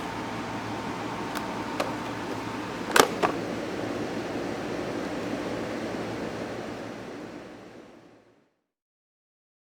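A sharp click about three seconds in, with a few softer clicks around it, as the laptop's power switch is flipped, over a steady background hum; everything then fades away to silence.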